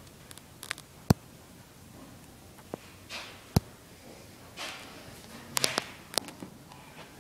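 Someone walking on a bare concrete slab: scattered sharp clicks and knocks with soft scuffs between them, and a quick cluster of clicks a little past the middle.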